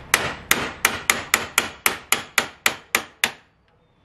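Hammer blows on a steel punch, driving a part out of a steel suspension arm: about a dozen sharp strikes that come quicker, up to roughly four a second, and stop a little over three seconds in.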